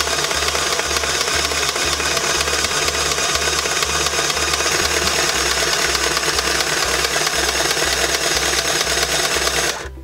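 Singer TS-380 Plus Tiny Serger, a small three-thread serger, running and stitching along a fabric edge: a loud, fast, even mechanical clatter of the motor, needle and loopers that stops abruptly near the end.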